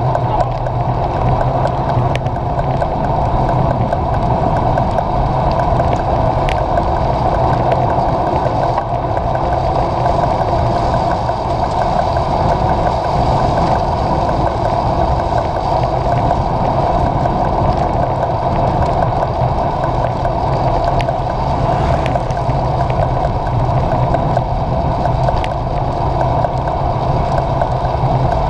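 Steady rush of wind and wet-tyre spray from a road bicycle riding at speed on a rain-soaked road, heard from the handlebars.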